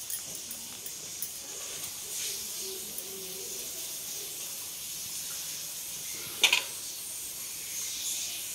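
Hands rubbing wet masala paste onto raw seer fish steaks on a steel plate: soft squelching and smearing over a steady hiss, with one sharp click about six and a half seconds in.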